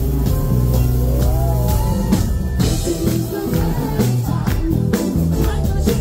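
Live band music played loud through a club PA: a steady drum beat and bass, with a singer's voice gliding over it.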